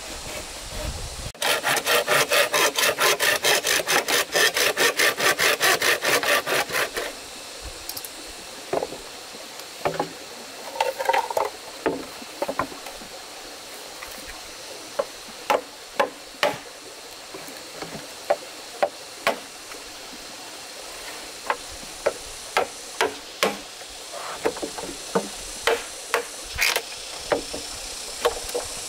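Hand saw cutting through wood in fast, even strokes for about six seconds, stopping a few seconds in. Scattered light knocks and taps of wood follow.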